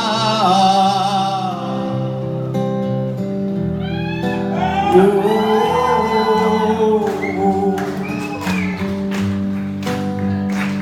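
Live band music in a large hall: a voice singing long, wordless, bending notes over guitar, with sharp regular beats coming in over the last few seconds.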